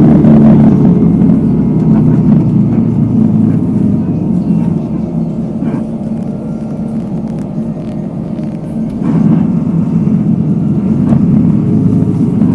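City road traffic: a heavy vehicle's engine running close at the start, fading as it moves off, and the level rising again about nine seconds in as more traffic passes.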